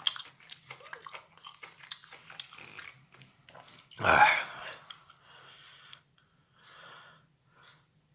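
Chewing and small wet mouth clicks from eating soft microwaved mushrooms, with one louder, noisy burst about four seconds in.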